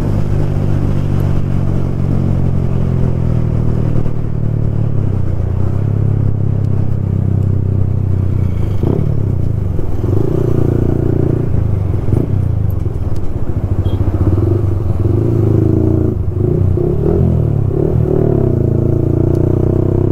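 Yamaha R15 V4's single-cylinder engine running through an aftermarket exhaust while riding, heard from the saddle. The note is steady for the first half, then rises and falls over and over with throttle and gear changes.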